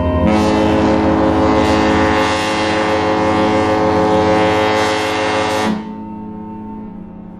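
Cruise ship's horn sounding one long blast of about five and a half seconds that cuts off suddenly, with a fainter hum after it. The long blast closes the general emergency signal (seven short blasts and one long) of a passenger muster drill.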